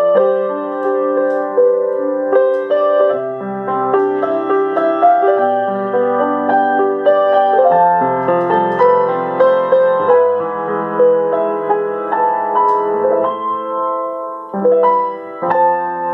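Grand piano played solo: a melody over sustained chords and a moving bass line.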